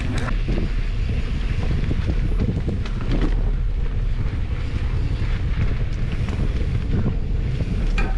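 Wind buffeting the microphone of a camera riding along on a mountain bike down a dirt trail, a steady low rumble, with scattered rattles and knocks from the bike over the bumps.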